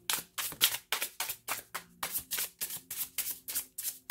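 A deck of thick, gold-edged tarot cards being overhand shuffled. Cards slap and flick from hand to hand in a quick, even patter of about six clicks a second.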